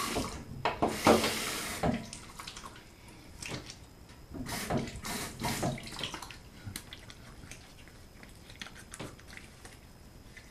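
Hands splashing water onto the face over a bathroom sink, rinsing off after a shave: a burst of splashes in the first two seconds and another around four to six seconds in, then small scattered drips.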